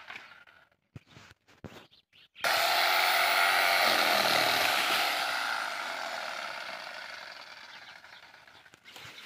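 Handheld power saw starting abruptly about two and a half seconds in and running loud while cutting dry date palm wood. A low tone dips briefly as the blade bites, then the sound fades gradually toward the end. A few faint clicks come before it starts.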